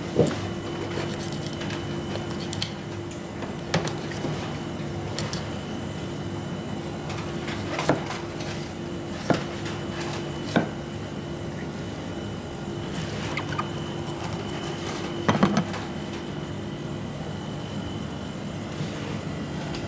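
A chef's knife cutting along an azukihata fish on a plastic cutting board, with a handful of short taps and knocks of the blade against the board and bone, a few of them close together near the end. Underneath, a steady machine hum.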